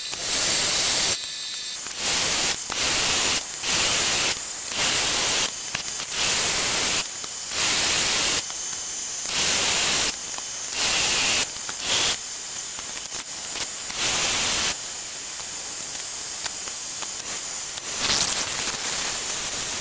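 Metal lathe turning an aluminium bush: a steady cutting hiss that surges louder about once a second.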